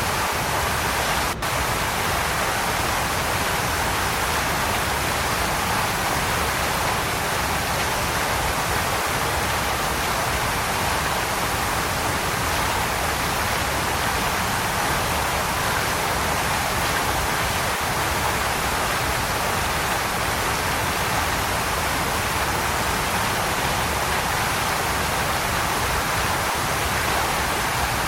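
Waterfall: steady, even rushing of falling water, with a momentary dropout about a second in.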